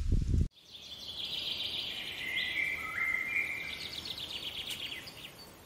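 Walking noise through reeds cuts off abruptly about half a second in. A channel-logo intro sound follows: high whistling tones that step down in pitch twice and end in a fast trill, fading out near the end.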